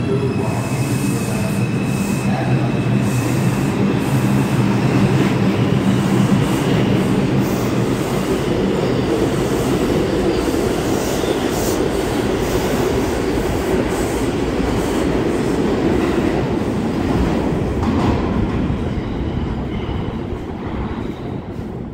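Bombardier R142 subway train pulling out of the station and gathering speed. A steady motor hum gives way to the rumble and rattle of its wheels on the rails, which fades after about eighteen seconds as the last car leaves.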